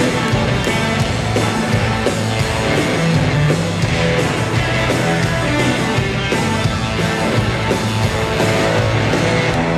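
Live rock band playing loud in an arena, with electric guitar and a steady drum beat, picked up from the audience.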